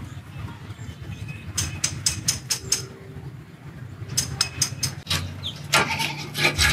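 Outdoor location sound: a steady low hum with two runs of quick sharp clicks or taps, about five a second, near two seconds in and again past four seconds, then denser clatter near the end.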